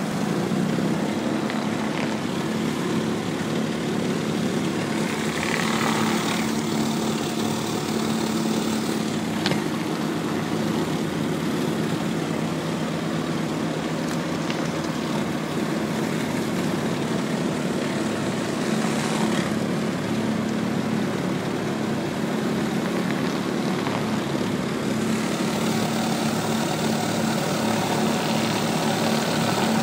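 Pressure washer's engine running steadily at a constant pitch, with the water jet hissing against concrete; the hiss grows louder a few times.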